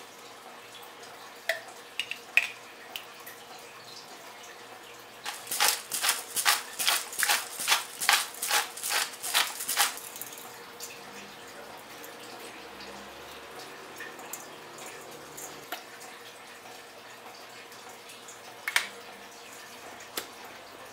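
Hand pepper mill grinding black pepper: a run of evenly spaced crunching strokes, about three a second, lasting around five seconds, with a few separate light clicks before and after.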